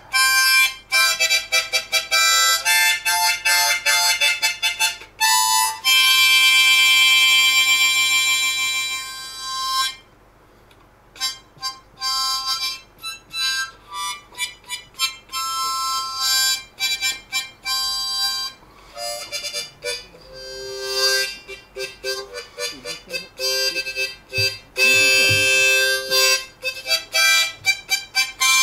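Background music: a melody of changing notes with one long held chord, dropping out briefly about ten seconds in.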